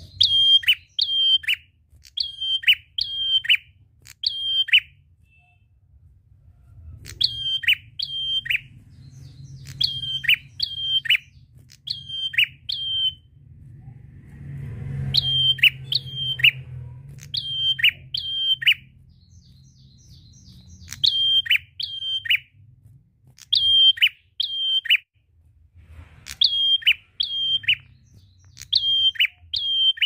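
A prenjak, a small tailorbird-like songbird, singing in loud repeated bursts of three or four sharp, high chirps, with a short pause between bursts and a couple of longer gaps.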